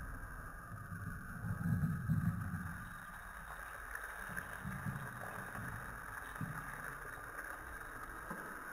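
Low, uneven rumble on a phone microphone, loudest about two seconds in and easing after, with a few faint clicks.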